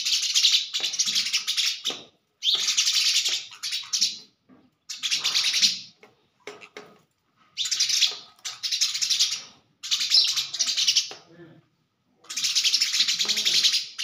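Sparrows chirping in fast, chattering bouts of one to two seconds each, about seven with short pauses between, as one sparrow fights its own reflection in a mirror.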